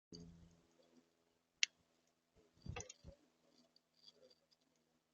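Faint sharp clicks and knocks, one crisp click about a second and a half in and a cluster of knocks near the middle, with a few short high chirps, over a steady low hum: small birds feeding and calling.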